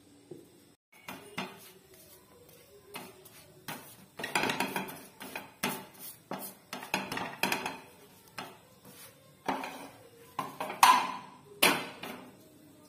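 Kitchen utensils clattering: a spatula knocking and scraping in a frying pan and metal dishes clinking, in a run of irregular knocks, with the two loudest near the end.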